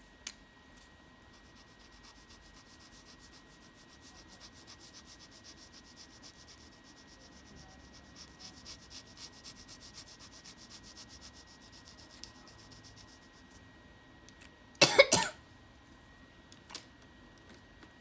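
Colored pencil shading on paper in rapid back-and-forth scratchy strokes, which stop about 13 seconds in. A brief loud cough comes about two seconds later.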